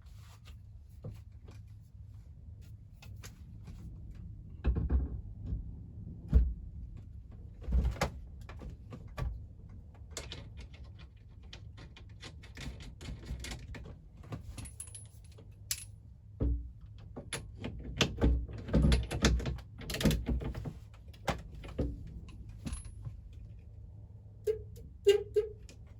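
Scattered clicks, knocks and metallic clinks of hand tools and parts being handled during work on a van's steering wheel, with a run of louder knocks about 18 to 20 seconds in and two short pitched blips near the end.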